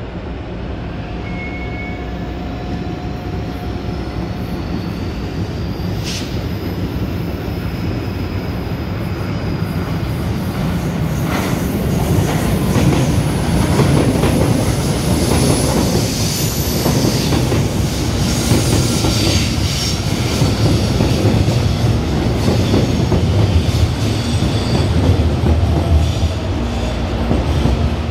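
CPTM electric suburban train running close past on the tracks, steel wheels rumbling and clacking over the rails with thin high wheel squeals. It grows louder about halfway through as the cars pass nearest. A single sharp clank comes about six seconds in.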